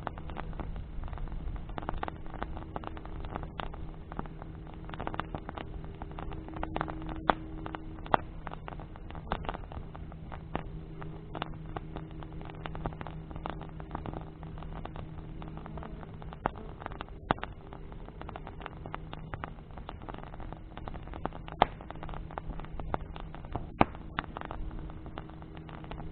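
Wood bonfire crackling, with sharp pops scattered throughout and a few louder snaps, over a steady low hum.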